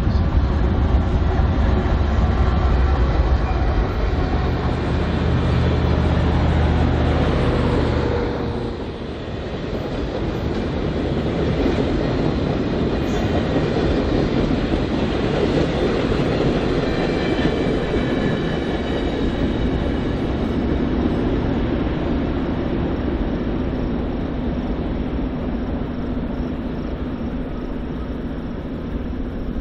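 A train passing close by: a diesel locomotive's engine drone for the first eight seconds or so, then it drops away and the steady rolling rumble of the train's cars on the rails follows.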